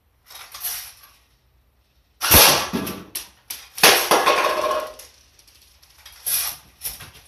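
AK47 airsoft electric gun being handled, giving a series of clacks and rattles; the loudest come about two seconds and four seconds in, with a few sharp clicks between.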